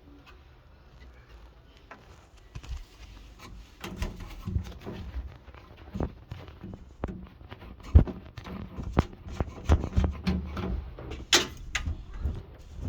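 Irregular clicks, knocks and rattles of hands working on a washing machine's panels and fittings, with a sharp knock about eight seconds in as the loudest.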